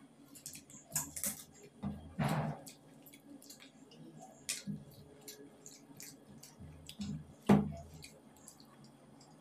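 Eating by hand: fingers squishing and scooping rice on a plate, with many small wet clicks and taps. There are two louder knocks, about two seconds in and again about three-quarters through.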